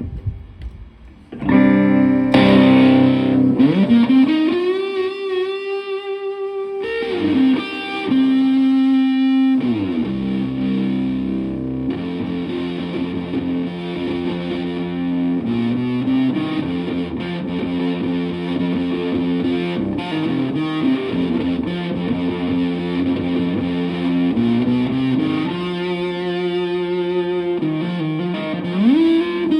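Electric guitar (a Stratocaster with three single-coil pickups) played through a germanium Fuzz Face-style fuzz pedal into a Twin Reverb-style amp: fuzzy, sustained notes and chords starting about a second and a half in, with string bends rising in pitch.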